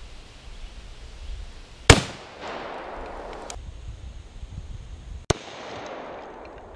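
Two sharp rifle cracks from a modified SKS firing 7.62x39: the first, about two seconds in, is very loud and followed by an echo that dies away over about a second and a half; a second, quieter crack comes about three and a half seconds later.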